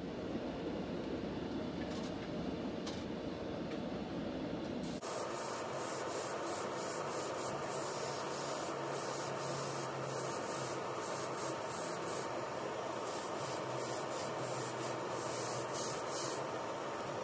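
A steady rushing noise, then about five seconds in an airbrush spraying paint in many short hissing bursts as the trigger is worked, over a steady low hum.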